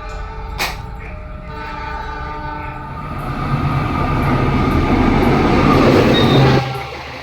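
Passenger train running, with a train horn's steady tones in the first few seconds. The rumble then swells louder and drops away suddenly about six and a half seconds in.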